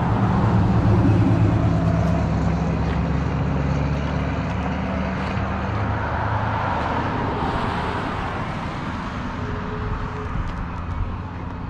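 A motor vehicle's engine running with a low, steady hum, loudest in the first few seconds and gradually fading.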